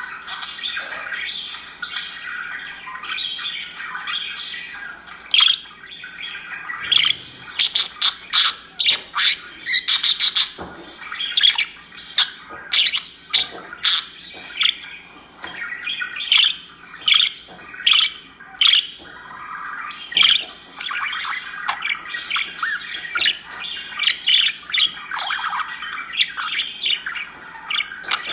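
Budgerigar squawking and chattering: many short, sharp, high calls in quick succession, thickest through the middle, over a softer running warble.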